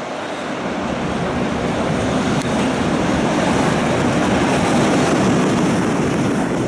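EH500 electric locomotive hauling a container freight train passing close by: a rushing rumble of wheels on rail that grows louder over the first couple of seconds as the locomotive goes past, then holds steady as the container wagons roll by.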